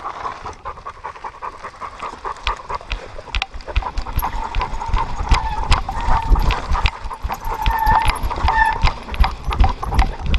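Dog running on a dirt trail, heard from a camera harnessed to its back: quick paw falls on the dirt and panting, with wind rumble on the microphone building from about four seconds in as it picks up speed.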